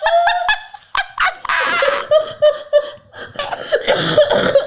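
Women laughing hard, in high-pitched squeals broken by breathless, wheezing stretches.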